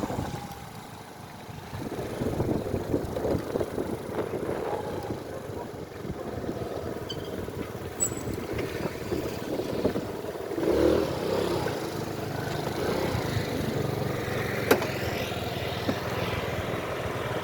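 A motorcycle running as it is ridden through traffic, with uneven rushing noise on the phone's microphone. Its engine note steadies from about ten seconds in, and there is one sharp click a few seconds before the end.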